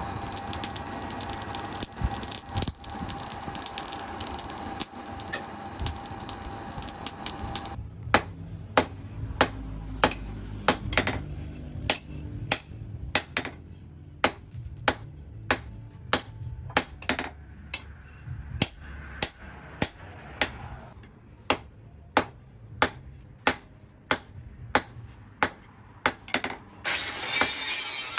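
Hammer blows on steel, struck at an even pace of about two a second, as in forging a blade. Before them, a steady machine noise with a held whine runs and cuts off about eight seconds in, and another harsh steady machine noise starts near the end.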